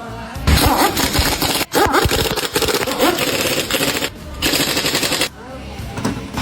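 Impact wrench hammering in three loud rattling bursts: a short one, a longer one of about two seconds, then a short one near the end.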